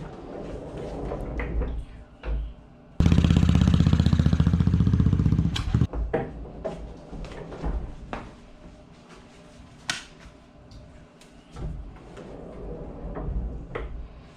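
Two-stroke chainsaw engine running for about three seconds with a fast even firing beat, starting and stopping abruptly, among clicks and knocks of handling.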